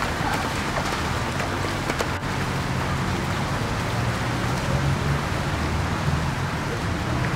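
Steady rain falling on a flooded street, a continuous hiss of water with a low rumble underneath.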